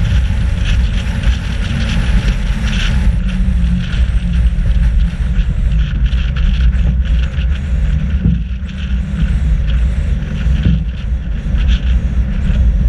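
Nissan Patrol GR driving at steady road speed, heard from an action camera mounted outside at the front: a steady low rumble of engine and road noise with wind on the microphone.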